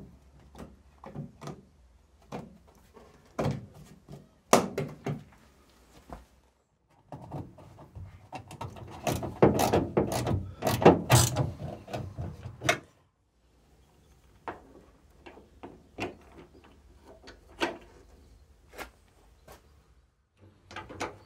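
Clicks and knocks of a car's rear light cluster being fitted to the body: the plastic lens unit and its metal fixings tapping into place, then a small spanner working the nuts from inside the boot, with a busy run of rapid clicks about halfway through.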